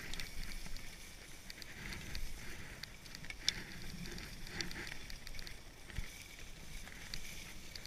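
Skis sliding over packed snow down a groomed slope: a steady scraping hiss with scattered light clicks and a sharper click about three and a half seconds in.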